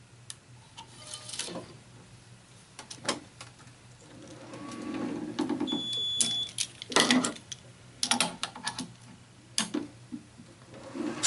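Tennis racket stringing: string drawn through the frame's grommets with a rising rub, with scattered sharp clicks and knocks of clamps and tools. A short high beep sounds about halfway through.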